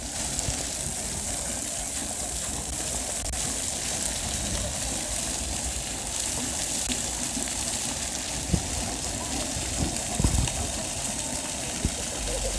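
Plaza fountain jets spraying and splashing down onto wet paving: a steady watery hiss, with a few low bumps in the second half.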